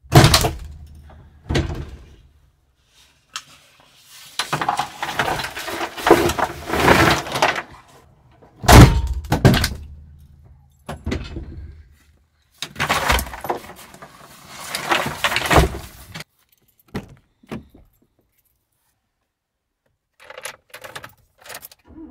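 Objects being handled: a series of loud knocks and thuds, with longer stretches of rustling and clattering between them, then a few seconds of quiet near the end.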